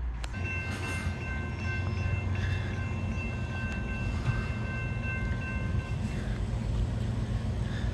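Norfolk Southern diesel locomotive horn sounding a three-note chord, with short breaks, stopping about six seconds in, over a steady low rumble from the approaching train.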